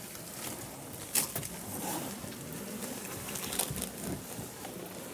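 Mangrove leaves and branches rustling and scraping against a small tender as it is pulled by hand and oar through a narrow mangrove canal, with sharp knocks about a second in and again past three and a half seconds.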